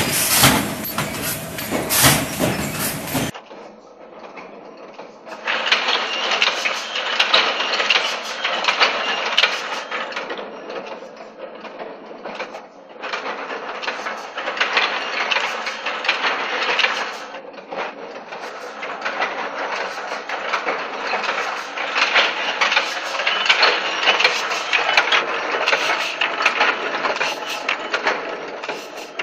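A mechanical automatic paper plate making machine running: a dense, rapid mechanical clatter from its press and paper feed. The sound changes abruptly about three seconds in, from a louder, fuller noise to the steadier clatter.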